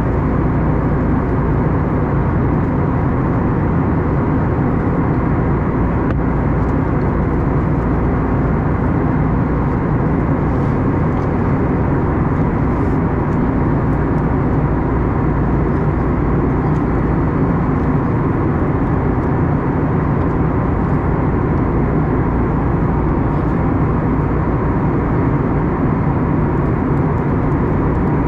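Steady engine and airflow noise inside the cabin of an Airbus A321neo, heard at a window seat. It is an even rush, heaviest in the low end, with a faint steady hum and no change in level.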